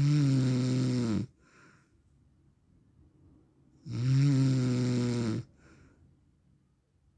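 A man snoring in his sleep: two long, low, droning snores about four seconds apart, each followed by a faint shorter sound.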